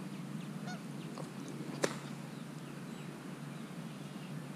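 Outdoor ambience by a pond: a steady low rumble, a few faint bird chirps, and one sharp click just under two seconds in.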